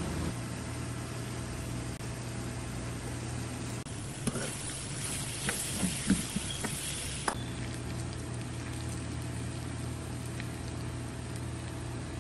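Shredded cabbage sizzling in an aluminium frying pan as a wooden spatula stirs it, scraping and knocking against the pan several times. The sizzle and stirring start abruptly about four seconds in and stop about three seconds later. A steady low hum continues underneath.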